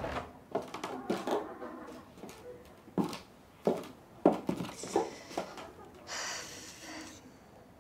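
A person moving about a small room: a run of light knocks and clicks about half a second apart, then about a second of rustling near the end.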